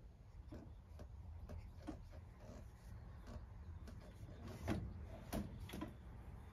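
Scattered soft clicks and knocks of handling, with a few louder knocks in the second half, over a low steady rumble.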